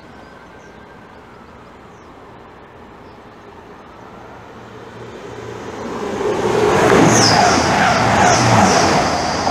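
Grand Central Class 180 Adelante diesel multiple unit passing through a station at speed. The noise builds from a few seconds in to a loud peak near the end, with a low hum under the rush of wheels on the rails and high metallic ringing.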